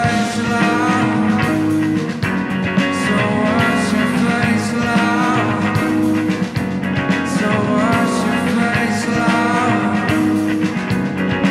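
Live indie rock band playing: electric guitar, keyboards and drums with a sung vocal line over a steady beat.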